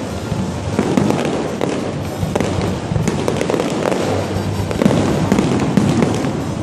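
Fireworks going off in a dense, continuous crackle of many small pops and bangs from crackling fountain and star effects.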